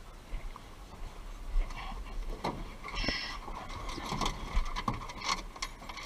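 Irregular rustling, scraping and knocking of vegetation and footsteps moving through brush, over a low rumble.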